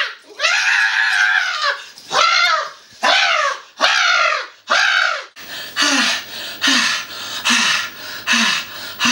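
A man wailing and crying out loudly: a string of high cries, each falling in pitch. About halfway in they turn into shorter, evenly spaced sobs, a bit more than one a second.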